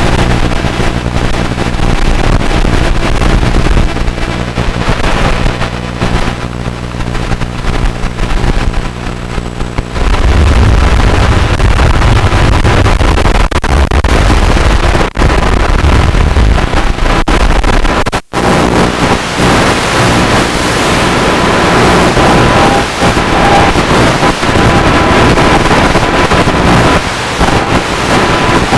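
Loud steady buzz and hiss from an analog FPV video link. About ten seconds in it turns into a heavier, rougher static, the kind that comes as the radio signal breaks up, with a couple of brief dropouts.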